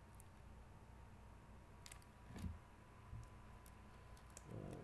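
Near silence with a few faint clicks and taps of trading cards being handled and shuffled.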